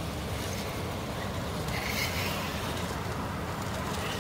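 Scale RC mud truck driving, a steady low rumble with a brief brighter sound about halfway through.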